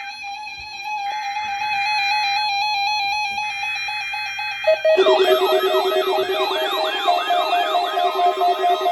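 Electronic synth music with a tone stepping back and forth in pitch, crossed twice by short buzzing bursts. About five seconds in it turns louder, into a siren-like wail of repeated falling sweeps, about two a second, over a pulsing low tone.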